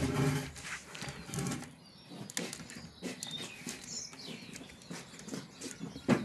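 Scattered light knocks, clicks and scrapes as a glass-topped garden table is gripped and shifted on stone paving.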